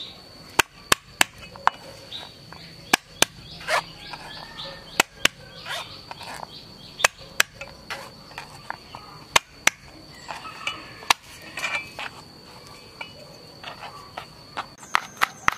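Knife blade knocking down on a plastic cutting board as garlic cloves are sliced, in sharp irregular strokes about one or two a second that come quicker near the end. A steady high-pitched whine runs behind.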